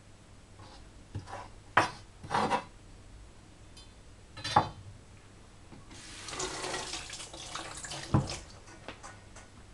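Kitchen knife scraping and knocking on a wooden cutting board a few times, gathering chopped greens. Then the kitchen tap runs for about two seconds while a hand is rinsed under it, with a sharp knock near the end.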